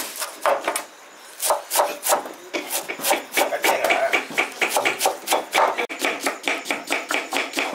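Knife rapidly chopping fresh coriander and sliced onions on a cutting surface: a quick, uneven run of sharp strikes, several a second, after a brief pause about a second in.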